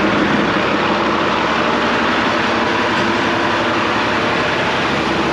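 Cummins L10 inline-six diesel in a 1986 International dump truck, idling steadily with the ignition key off. It keeps running because the fuel shutoff solenoid is held open by its thumb-screw override.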